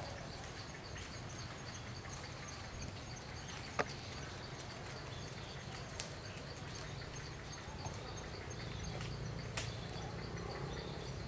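Forest ambience: a steady low rumble under a regular high chirping that repeats a few times a second, with three sharp clicks, about four, six and nine and a half seconds in.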